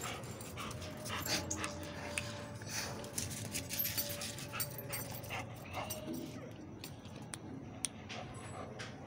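A Labrador dog making short whining sounds, mixed with many short clicks and scuffs as it moves about.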